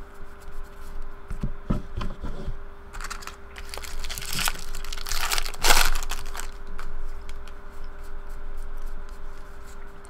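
Foil wrapper of a 2013 Bowman Jumbo baseball card pack being torn open and crinkled, in several bursts loudest a little past halfway. Light clicks and ticks of cards being handled come before and after.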